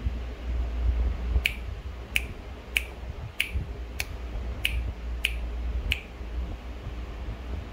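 Fingers snapping eight times at an even pace, about one sharp snap every two thirds of a second, over a steady low hum.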